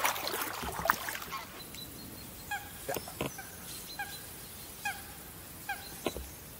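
Paddle splashing in the first second. Then short animal calls, each a brief downward-hooking note, repeat about once every second, with a few sharp light knocks between them.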